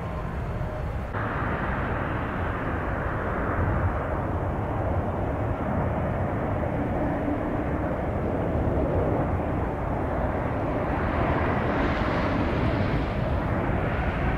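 Jet airliner engines running steadily, with a rise in a higher hiss around twelve seconds in.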